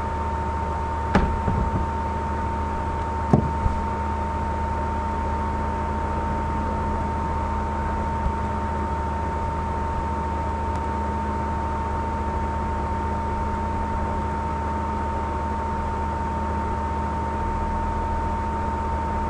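Steady electrical hum and hiss with a constant high whine, the background noise of a computer recording setup, with a few sharp clicks in the first few seconds.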